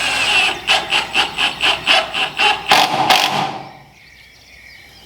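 A screw being driven into a wooden post with a power driver: a run of rhythmic pulses about four a second that stops about three seconds in.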